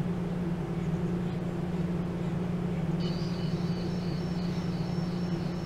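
Steady low hum, with a high, wavering whine joining about three seconds in.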